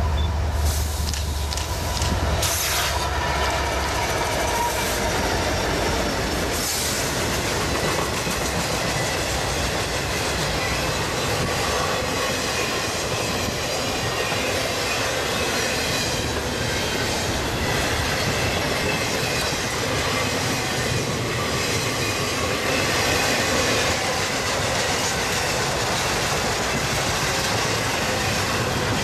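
Train rolling past close by: a low locomotive drone in the first few seconds, then a long string of cars with wheels clattering over the rail joints and squealing.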